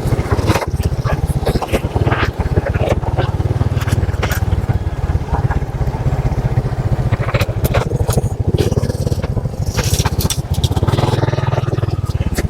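Motorbike engine running steadily while riding, with scattered sharp clicks and knocks over it.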